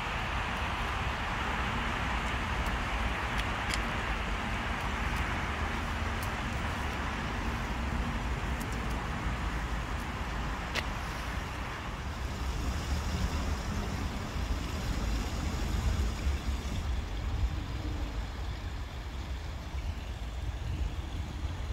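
Distant road traffic, a steady rush with a low rumble underneath, easing somewhat about halfway through.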